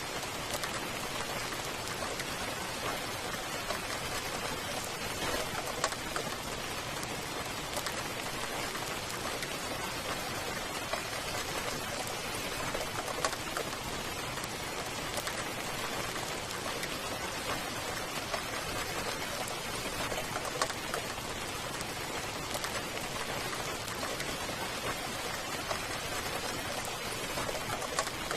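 Steady rain falling, with scattered louder drops ticking on a surface.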